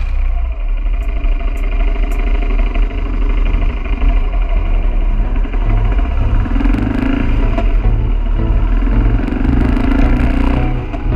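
BMW F650CS Scarver's single-cylinder engine running while the motorcycle is ridden.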